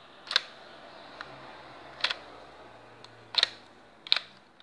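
Hard plastic clicks of a brick-built Lego Glock 43 model pistol being worked by hand, its moving Lego parts clacking. Four sharp clicks, some doubled, spaced a second or so apart.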